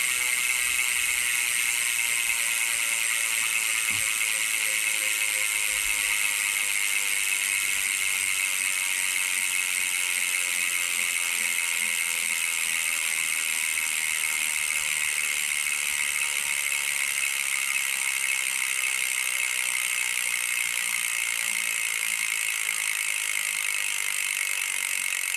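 Bicycle rear hub freewheeling: a fast, steady buzz of pawl clicks that slowly drops in pitch as the wheel spins down.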